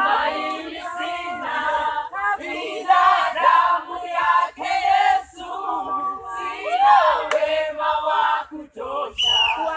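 Several voices singing together, choir-like, with some notes held and others sliding.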